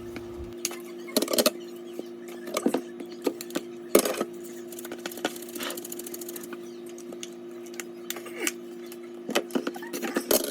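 Kitchen handling sounds: scattered clicks and knocks of dishes and utensils, the loudest about four seconds in and a quick run of them near the end, over a steady low appliance hum.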